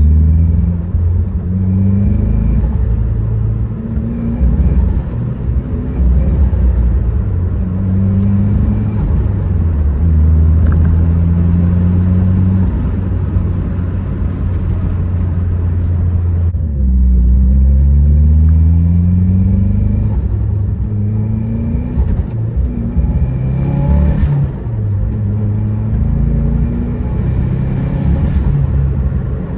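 Turbocharged 2.4-litre Mitsubishi Lancer VRX engine and Ralliart exhaust under way, the revs climbing and falling again and again through the gear changes, with a clear lift off the throttle about sixteen seconds in and a long climb in pitch after it. The engine is untuned, which the owner says makes it drive badly.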